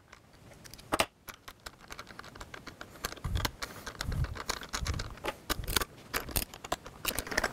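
Irregular small metallic clicks and taps of screws being fitted by hand into a backrest's aluminium mounting bracket, with a few soft low knocks in the middle.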